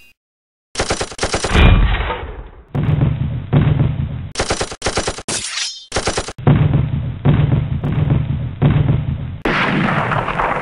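Machine-gun fire sound effect: bursts of rapid automatic shots starting about a second in, several clips cut together with brief breaks between them.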